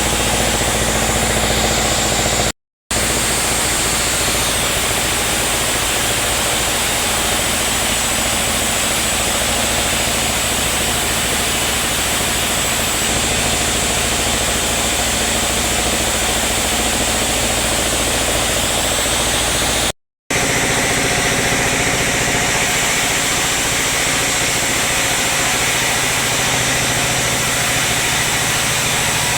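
Sawmill machinery running steadily: a dense, even engine-and-saw drone, broken by two brief silent gaps, about 3 seconds in and about 20 seconds in.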